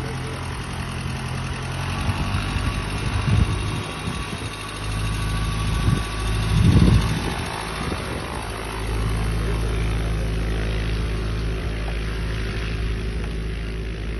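Jabiru aero engine of a Kitfox kit plane running with its propeller turning as the plane moves across the grass, a steady engine note whose level shifts a few times. It is loudest about halfway through, as the plane passes close.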